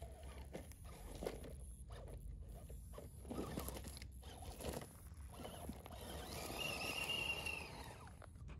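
Scale RC crawler trucks driving over rough trail ground: irregular crunching and clicking of tyres on stones and debris, with a brief high electric-motor whine swelling about six to seven seconds in.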